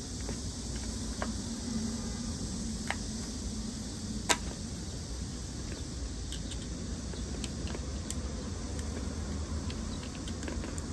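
A flat-head screwdriver prying at the plastic housing of an electric hand drill: scattered sharp clicks and light taps, one louder click about four seconds in, over a steady background hiss.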